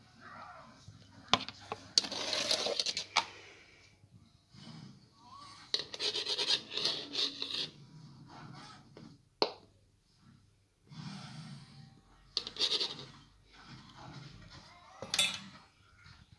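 A silvery metallic cat wand toy rattling and scraping as it is rubbed over a cat's fur. The sound comes in several uneven bursts of rustling with a few sharp clicks between them.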